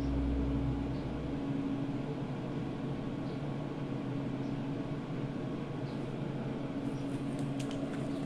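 Steady hiss with a faint low hum from a sound system (a homemade parametric equalizer feeding a power amplifier) during a quiet gap in the music, with a few faint clicks near the end.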